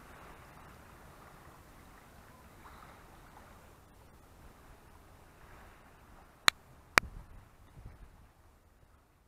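Faint wash of small waves lapping on a rocky shore. Two sharp clicks about half a second apart come a little past halfway. The sound then fades almost to nothing near the end.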